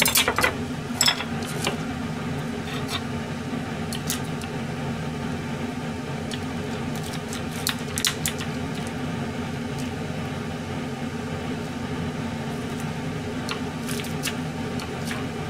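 Steady low mechanical hum in a kitchen, with scattered light clicks and taps of utensils and dishes being handled, a small cluster right at the start and more about eight seconds in and near the end.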